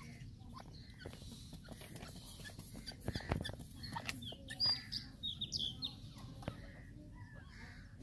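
Grey francolins giving short, high chirping calls in a cluster from about four to six seconds in, with scattered knocks and scuffs and one stronger thump about three seconds in.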